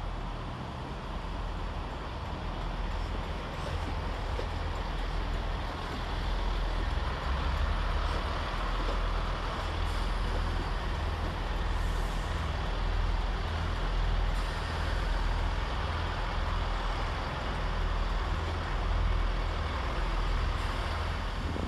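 Class 165 diesel multiple unit arriving at the platform: steady diesel engine rumble and running noise, growing a little louder about seven seconds in.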